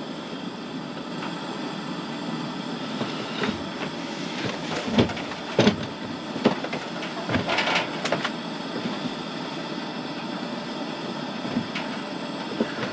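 Steady hiss of a propane burner, with a few knocks and rustles of things being handled about a third of the way in.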